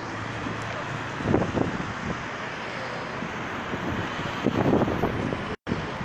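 Steady road traffic noise from cars circling a motorway-exit roundabout, with gusts of wind buffeting the phone microphone twice. The audio cuts out for an instant near the end.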